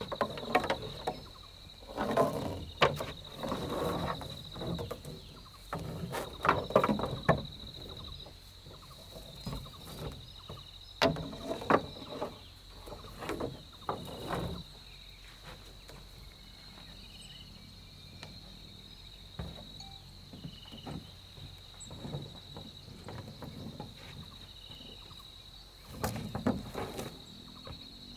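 Irregular knocks and clatters of wood being worked and handled, busiest in the first half and again briefly near the end, over a steady high insect drone.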